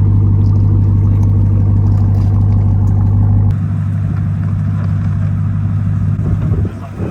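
An engine running at a steady speed, a loud low hum that drops abruptly in level about halfway through.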